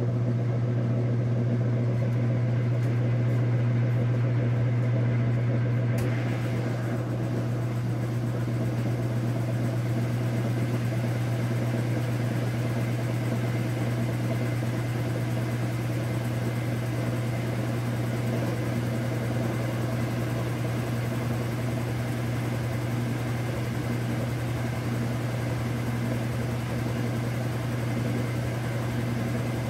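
KitchenAid Superba top-load washer (direct-drive motor) running in its spin, a steady low motor hum with the whirr of the spinning tub. About six seconds in, it gets slightly quieter and a hiss joins in.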